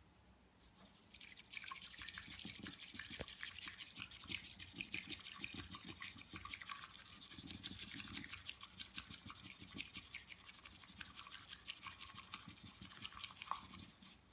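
Bamboo tea whisk (chasen) whisking matcha in a ceramic tea bowl: a fast, even brushing and swishing of the tines through the tea. It starts about a second in and stops just before the end.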